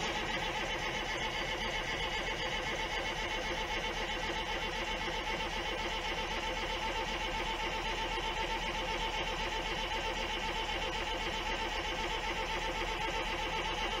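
Detroit Diesel 6V92 two-stroke V6 diesel idling steadily just after a cold start.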